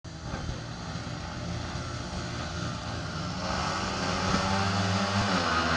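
Four speedway bikes' 500 cc single-cylinder methanol engines revving together on the start line, growing louder about halfway through as the riders open up for the start.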